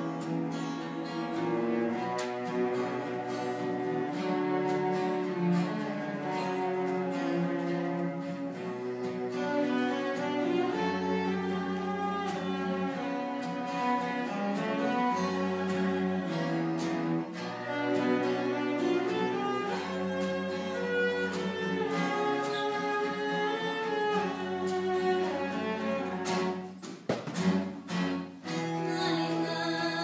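Live chamber music: a cello playing sustained bowed notes with guitar accompaniment. It breaks off briefly near the end with a few sharp knocks before the playing resumes.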